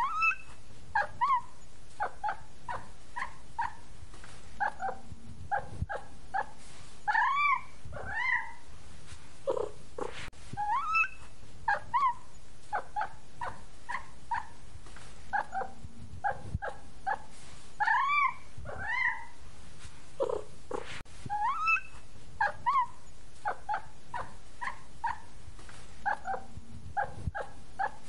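A looped music track built around cat meows: short pitched notes and rising-then-falling meows, with the same phrase repeating about every ten seconds.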